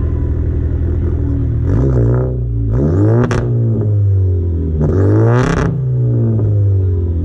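Volkswagen Jetta's engine through an aftermarket full stainless-steel exhaust with downpipe and quad tips: idling, then revved three times with short throttle blips, each rising and falling back to idle.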